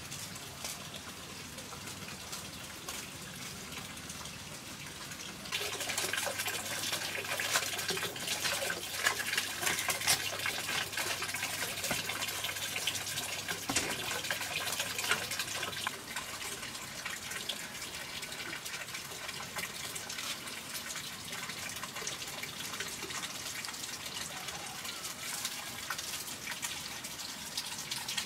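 Water running and splashing, noticeably louder from about five seconds in until about sixteen seconds in.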